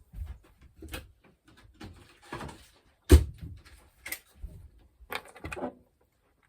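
Knocks, clicks and clatter of containers and utensils being handled on a kitchen counter, with one sharp knock about three seconds in.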